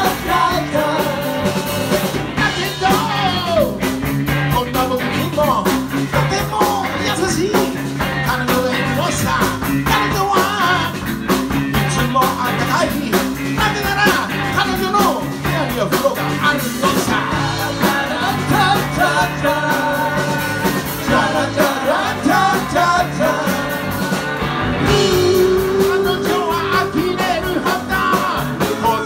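A live rock band playing: a male lead singer over two electric guitars and a drum kit, with a steady beat.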